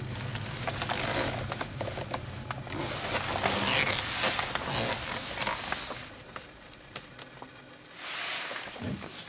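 Road and tyre noise in a Volvo's cabin dying away as the car coasts to a stop with its engine shut off by the start/stop button while driving. It fades out about six seconds in, followed by a short rustle of noise near the end.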